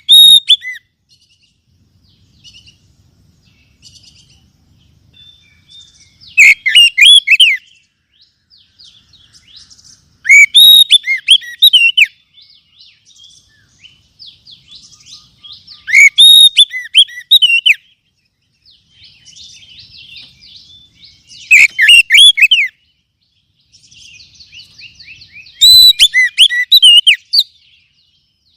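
Oriental magpie-robin (kacer) singing: loud bursts of rapid whistled and chattering notes, each one to two seconds long, about every four to five seconds, with quieter twittering between.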